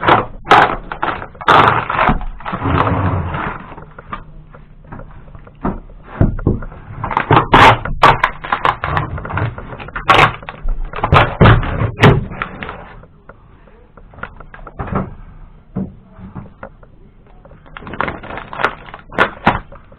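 Fire-damaged interior lining in a boat's cabin being pried and pulled off by hand: bursts of cracking, scraping and knocks, with pauses between them.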